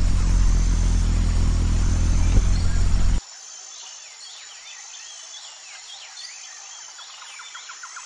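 A loud, steady low hum cuts off abruptly about three seconds in. Quieter outdoor ambience follows, with birds chirping in quick rising and falling calls and a fast pulsing insect trill starting near the end.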